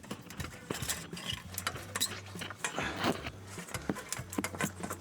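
Irregular metallic clinks and knocks of exhaust pipe pieces and hand tools being handled and fitted, over a faint low steady hum.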